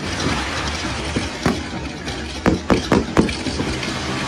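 Fireworks going off: one bang about a second and a half in, then a quick run of four bangs around the three-second mark, over steady background noise.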